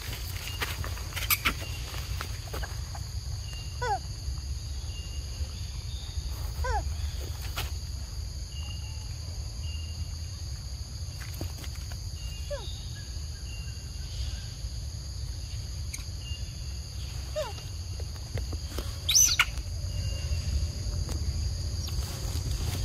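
Forest ambience: a steady high insect drone, with short falling bird whistles every few seconds and a low rumble underneath.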